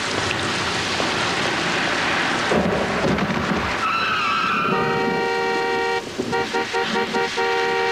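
Heavy rain pouring on the street, then a short squeal about four seconds in, followed by a taxi's horn: one long blast, a quick string of short honks, then another long blast.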